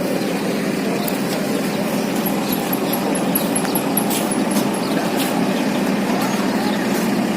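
Steady low background rumble with a faint hum, and a quick run of about a dozen high chirps in the middle.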